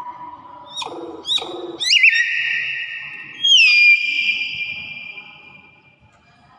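Hill myna whistling: a held whistle that breaks off about a second in, two quick upward-sweeping notes, then two long clear whistles, the last one rising and then held as it slowly fades.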